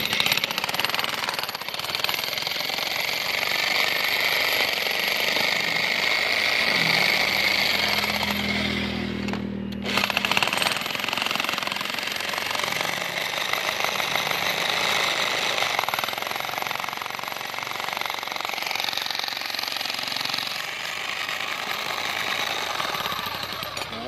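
Jackhammer with a chisel bit hammering into hard, rocky ground, running continuously. It stops briefly just before ten seconds in, then starts again.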